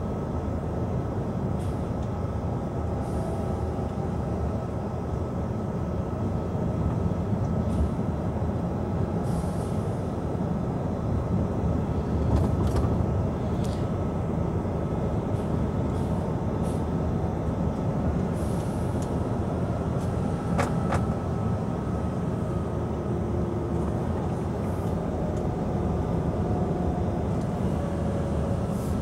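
Heavy truck's engine and tyre noise heard from inside the cab while driving at steady speed: a continuous low drone, with a few brief faint clicks or rattles now and then.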